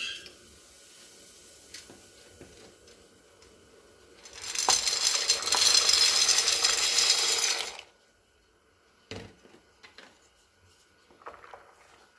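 Kitchen sounds while cooking: a few light knocks and clinks of dishes, then a rush of running water lasting about three and a half seconds, then more clinks near the end.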